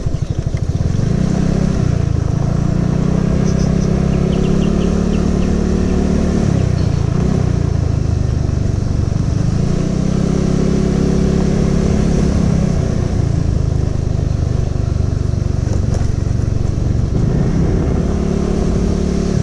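Suzuki Skydrive Sport scooter's small single-cylinder four-stroke engine running while being ridden along a rough gravel track. Its note rises and falls several times as the throttle is opened and eased.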